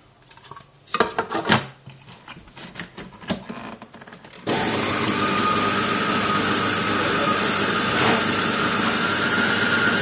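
Plastic clicks and knocks as the lid of an Arçelik Roboset food processor is fitted and locked. About four and a half seconds in, its motor starts suddenly and runs steadily, grinding roasted peanuts with oil into peanut butter.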